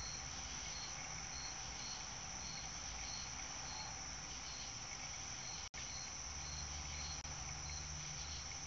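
Crickets calling at night, faint: a steady high-pitched trill with a second chirp pulsing about twice a second.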